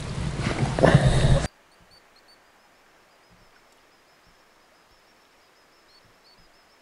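A loud burst of hand-handling and water noise for about a second and a half, cut off abruptly. Then near quiet with a faint, steady high-pitched chirring.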